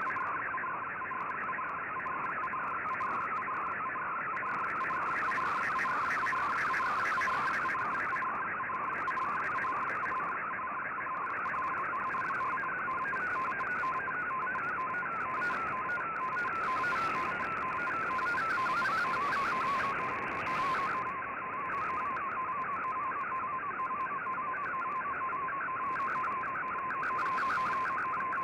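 Digital image transmission received over shortwave AM radio: a rapidly shifting, warbling tone that codes the picture line by line, with a steady lower tone beneath it, over a haze of band noise.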